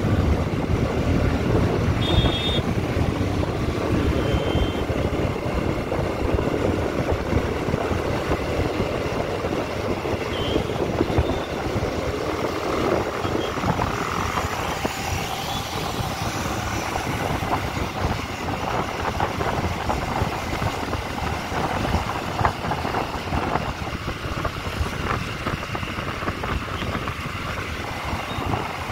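Motorcycle on the move: a steady rush of engine and road noise, with heavy buffeting on the microphone. A couple of short high beeps come about two seconds in and again near five seconds.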